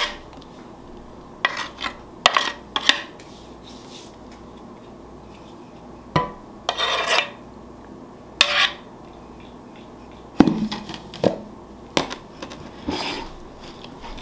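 A utensil scraping cake batter out of a metal cake pan, clinking against the pan and a glass mixing bowl in separate clusters of sharp clinks and short scrapes.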